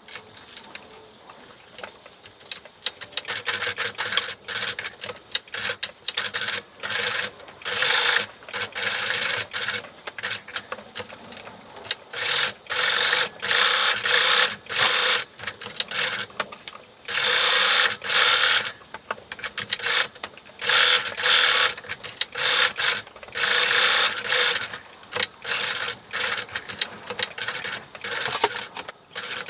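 Sewing machine stitching in repeated short stop-and-go runs, with brief pauses between, the runs growing louder and longer about halfway through. It is sewing a zipper tape on with a zipper foot, right alongside the zipper teeth.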